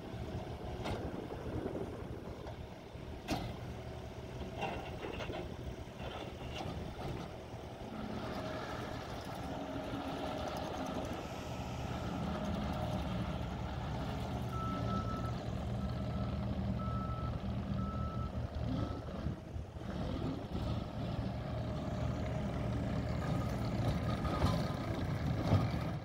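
The FPT 3.4-litre four-cylinder turbo diesel of a New Holland C227 tracked skid steer loader running as the machine drives and turns on its rubber tracks, working harder from about eight seconds in. A reversing alarm beeps about once a second for a few seconds midway, and a few sharp knocks come in the first several seconds.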